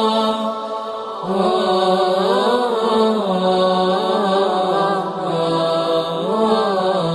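A man's voice chanting unaccompanied in the style of an Arabic nasheed or recitation, holding long drawn-out notes with melodic ornaments between them.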